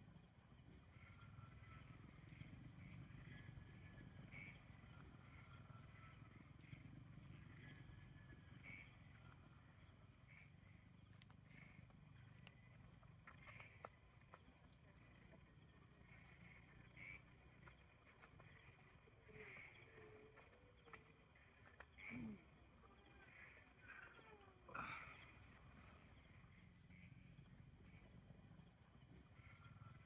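Night-time chorus of crickets and other insects: a steady high-pitched trill, with scattered short chirps over a faint low hum. Two brief louder sweeping sounds break in about three-quarters of the way through.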